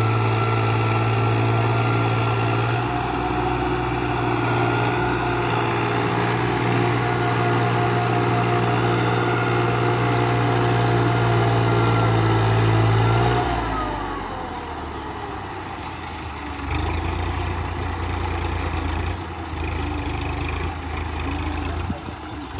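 Tractor diesel engine running steadily while tilling a field. A bit past halfway the engine note falls away and quietens, then a lower, steady engine sound picks up again.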